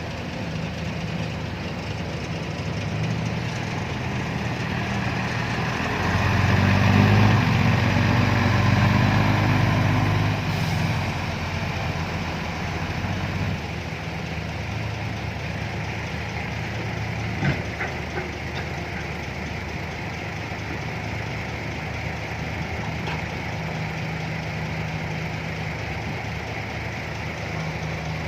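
Heavy diesel engines of an excavator and dump trucks running steadily, building to a louder stretch about six seconds in that eases off some four seconds later. A single sharp knock comes about two-thirds of the way through.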